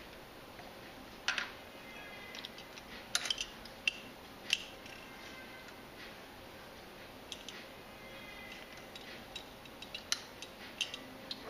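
Light, irregular metallic clicks and taps from fingers handling the bobbin and bobbin case under the needle plate of a Singer 211 industrial walking-foot sewing machine while the bobbin thread is drawn through the case's slot.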